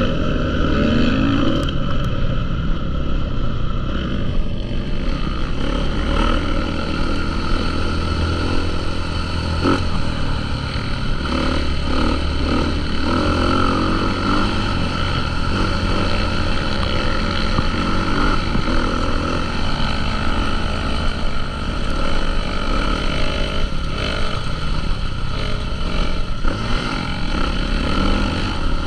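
Motocross dirt bike engines running, loud and continuous.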